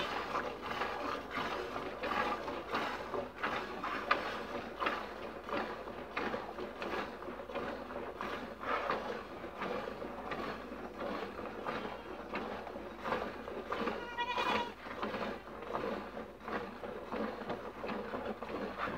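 Goat being hand-milked: rhythmic squirts of milk hitting milk in a plastic bucket. A goat bleats once about fourteen seconds in.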